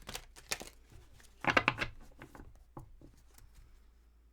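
Tarot cards being handled: a few short rustles and taps, with one louder burst about a second and a half in, then it goes quieter.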